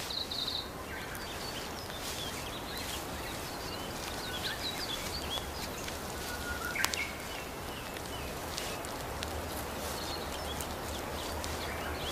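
Temperate forest ambience: a steady background hiss with scattered short, high bird chirps, and one sharp click about seven seconds in.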